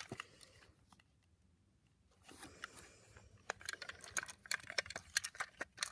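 Light plastic clicks and taps from a Trackmaster Diesel 10 toy engine being handled and turned over in the hands. There is a brief lull about a second in, then many scattered clicks.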